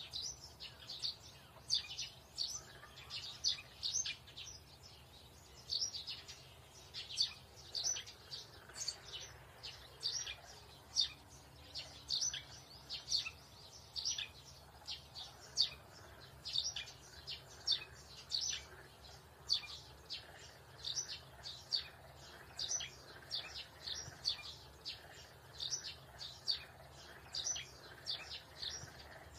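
Small birds chirping: short, high, sharp chirps, two or three a second at irregular intervals.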